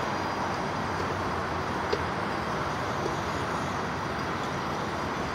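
Bacon frying in a pan, a steady sizzle, with one small click about two seconds in.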